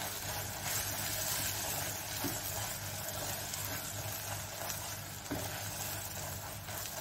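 Hot oil sizzling in a pan as fried onions and ginger-garlic paste are stirred with a spatula, with two faint knocks, about two and five seconds in.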